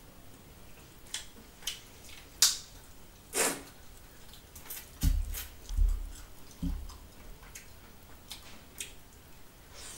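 Close-miked eating sounds: wet mouth smacks and clicks while chewing chicken fry masala eaten by hand, with a few dull thumps about five to seven seconds in.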